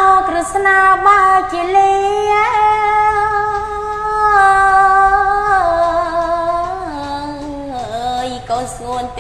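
A woman's voice chanting Khmer smot, holding long drawn-out notes; about two-thirds of the way through the melody steps down lower in a few stages.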